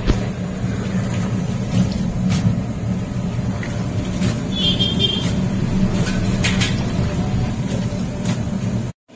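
A steady low hum runs under scattered knocks and splashes as raw chicken pieces are washed by hand in a big metal pot of water. A brief high tone sounds about five seconds in, and the sound cuts off abruptly just before the end.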